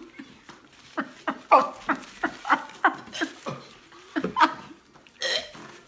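A person gagging and retching in a run of short, sharp heaves, about three a second, in disgust at a rotten-egg-flavoured BeanBoozled jelly bean, followed near the end by one loud breathy burst like a spit or blow.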